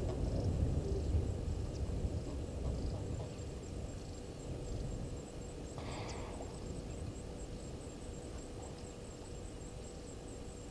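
Outdoor bush ambience: a low rumble that slowly fades, a faint steady insect trill high up, and one short rasping sound about six seconds in.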